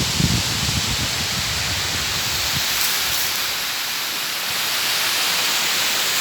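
Tiered waterfall rushing: a steady, loud hiss of falling water. Irregular low rumbling sits under it for the first two and a half seconds.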